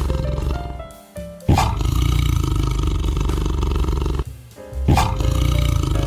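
Tiger roaring: two long, low roars, each starting suddenly, the first about a second and a half in and the second about five seconds in, with a short pause before each.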